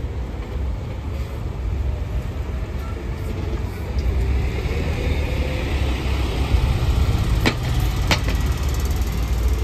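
Street traffic: a vehicle's engine rumbles steadily, and road noise swells as it passes close by in the middle. Two sharp clicks come near the end.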